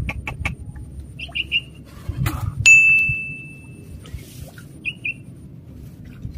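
Small birds chirping in short groups of two or three quick notes. Partway through, a single sharp metallic ding rings out clearly and dies away over about a second; it is the loudest sound here.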